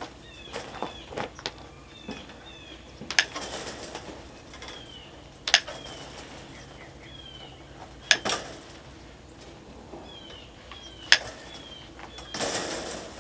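Welded wire concrete mesh being handled and laid: four sharp clanks a few seconds apart and a rustling scrape near the end, with small birds chirping.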